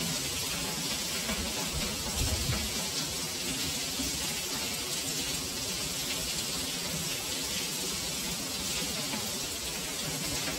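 Heavy rain pouring steadily, splashing on stone paving and walls, with a brief low thump about two seconds in.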